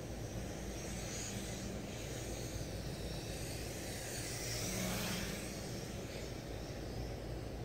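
MJX X600 hexacopter's six motors and propellers buzzing steadily in flight, swelling louder about five seconds in and then falling back.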